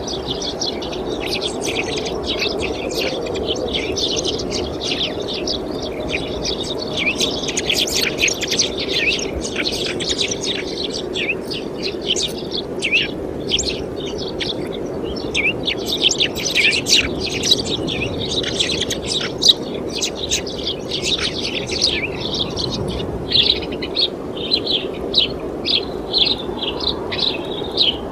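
Many small birds chirping and twittering continuously, dense overlapping calls, turning into a run of short repeated calls about twice a second near the end. Underneath is a steady low rumble.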